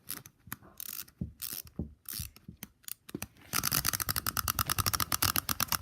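Small wind-up hopping bunny toy: its key is turned with scattered ratchet clicks, then about three and a half seconds in the clockwork is let go and runs with a rapid, even clatter of about ten clicks a second as the toy hops.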